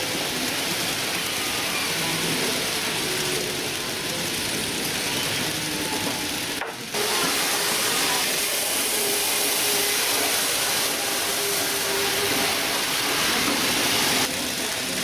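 Tomix model train, with EF62 and EF63 electric locomotives, running on the track: a steady hissing rattle of wheels on rail with a faint motor whine. The sound breaks off briefly about seven seconds in.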